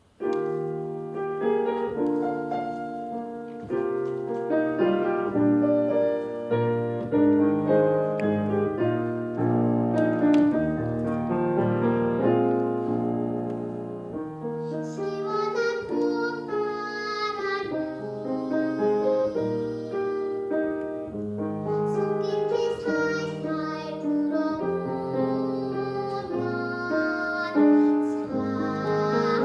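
Piano accompaniment of a Korean children's song (dongyo) starting up, with a child's singing voice coming in about halfway through.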